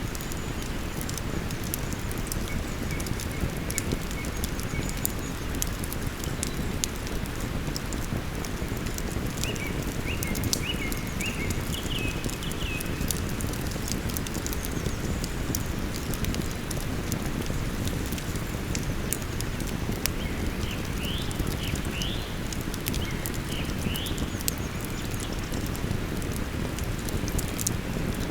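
Campfire crackling with frequent sharp pops over the steady rush of a flowing river. A small bird sings short, quick chirping phrases twice, about a third of the way in and again past the middle.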